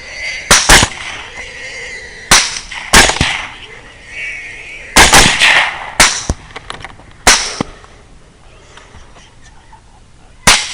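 A string of about eight gunshots fired at irregular intervals while shooting into a group of feral hogs, several close together in the first half and one near the end.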